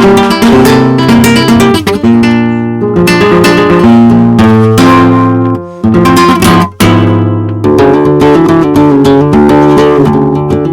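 Background music: acoustic guitar strumming and picking in a flamenco-like style.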